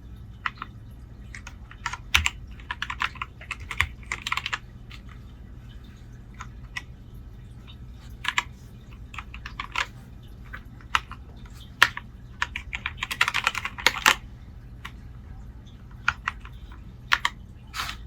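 Keys on an EVGA Z15 mechanical keyboard being pressed in scattered single clicks, with two short flurries of rapid presses, one a couple of seconds in and one near the end.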